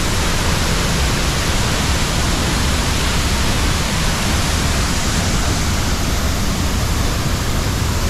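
Large, powerful waterfall heard close up: a loud, steady rush of falling water.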